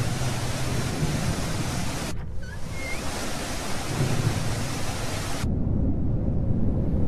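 Steady low rumble with a rushing hiss over it. The hiss cuts out briefly about two seconds in, comes back, and drops away again about five and a half seconds in, leaving only the rumble.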